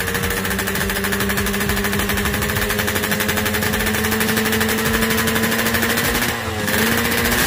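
Yamaha RX-King's single-cylinder two-stroke engine running steadily at a raised idle while its carburettor is being set. About six seconds in, the engine speed dips briefly and picks back up.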